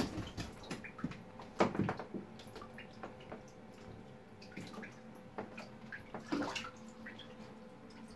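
Bathwater splashing and sloshing in a bathtub as a young Java macaque scrambles in and out of it. The splashes come irregularly, with the loudest about one and a half to two seconds in and again a little past six seconds.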